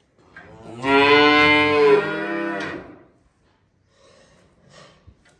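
A young Jersey calf gives one long moo. It starts about a second in, lasts about two seconds and fades at the end.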